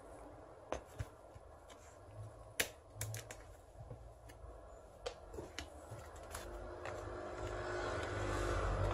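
Scattered clicks and knocks of a Keyang DDH-1801L cordless hammer drill's parts being handled: its gearbox and motor assembly set into a red plastic housing half and the halves fitted together. The sharpest knock comes about two and a half seconds in.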